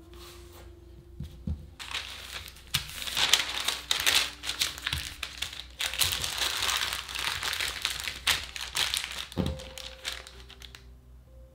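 Sheet of baking paper crinkling and rustling as it is folded tightly around a block of laminated pastry dough, with one soft thump near the end.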